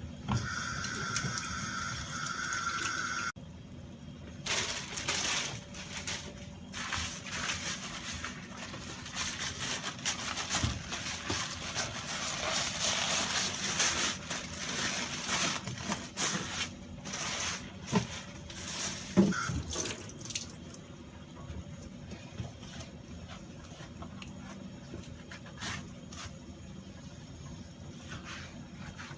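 Water running from a tap and splashing, as fish or a knife is rinsed, from about four seconds in until about twenty seconds in. It is preceded by a short steady high tone that cuts off abruptly about three seconds in.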